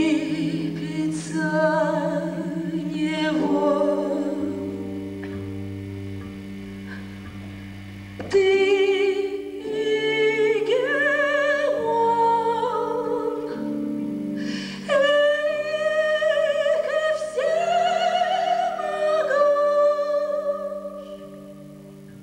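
A slow sung ballad: a solo voice holding long notes with vibrato over sustained accompaniment. It swells sharply about eight seconds in and falls quieter near the end.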